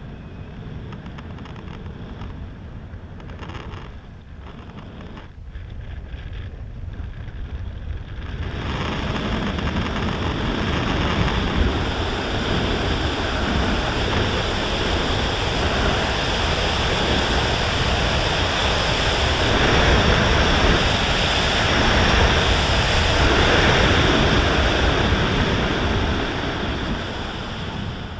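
Wind rushing over a helmet-mounted camera's microphone as a paraglider flies. The noise builds sharply about eight seconds in and stays loud, easing off near the end, with the airspeed of a steep banked turn, consistent with a spiral dive.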